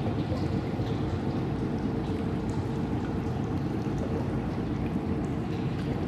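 Abandoned-factory ambience: a few scattered water drips over a steady low rumble, with a faint steady hum.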